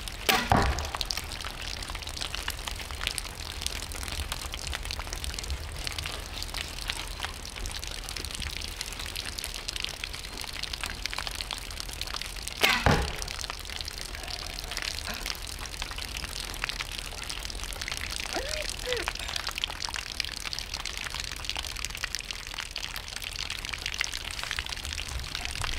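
100 lb horn bow shot twice: a sharp string release about half a second in and again near the middle. Steady rain patters underneath.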